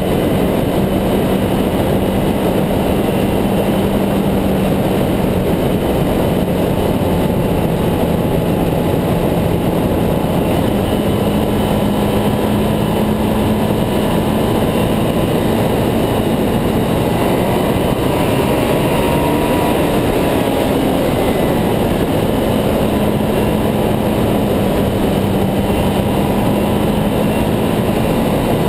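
Ducati Hypermotard 796's air-cooled L-twin engine running at steady cruising speed under a constant rush of wind and road noise. The engine note shifts slightly up and down a few times with the throttle.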